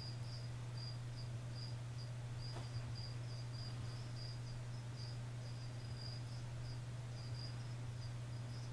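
A cricket chirping in short pulses at one high pitch, two or three a second, over a steady low hum.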